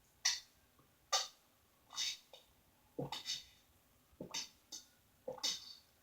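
Close-miked chewing with wet, open-mouthed smacks of the lips and tongue, a short crackly smack about once a second.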